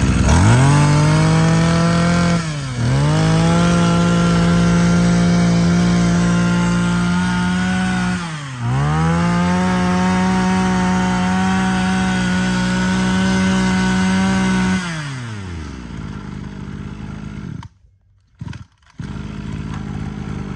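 Mitsubishi TB26 26cc two-stroke brush-cutter engine running at high revs, its speed dipping sharply twice and picking straight back up, then slowing down and cutting out near the end.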